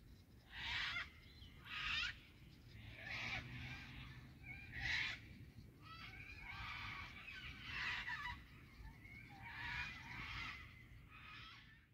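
Birds calling in short, separate bouts, about one a second, each a burst of wavering, honking calls, over a faint low steady rumble.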